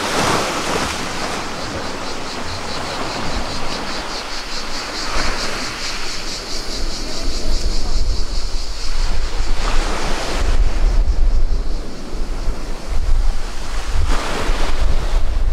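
Sea waves washing onto the shore, swelling every few seconds, with wind buffeting the microphone, heavier in the second half.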